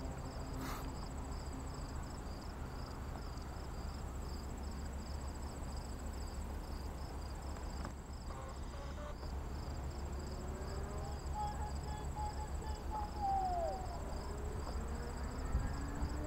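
Crickets chirping in a steady, regular pulse over a low rumble, with a brief falling call near the end.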